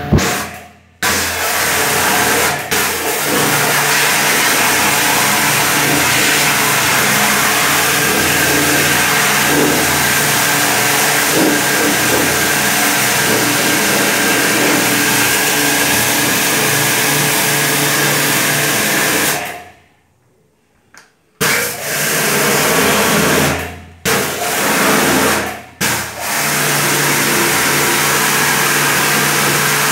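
Electric pressure washer running: a steady motor hum under the hiss of the water jet spraying onto a washing machine's plastic tub. It cuts out a few times, once for about two seconds a little past the middle.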